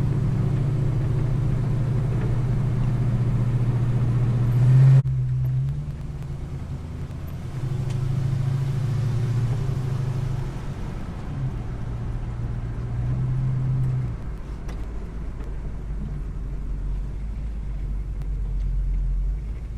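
Car engine and road noise heard from inside the cabin while driving in town traffic. A steady low engine drone drops suddenly about five seconds in, then rises and falls a couple of times as the car speeds up and eases off, ending in a lower rumble.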